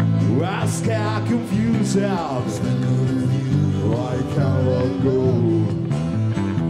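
Live band music: a man singing lead over electric bass and acoustic guitar, the voice dropping out about six seconds in while the instruments play on.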